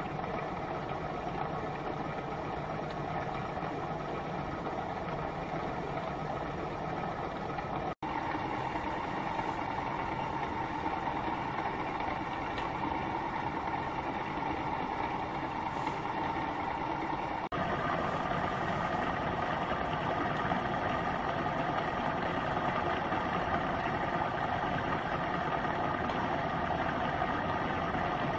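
Small home-built gamma-type Stirling engine running steadily: the moving pistons, connecting rods and brass flywheel make a continuous mechanical running sound. The sound drops out for an instant about eight seconds in, and again just past the middle, after which it is slightly louder.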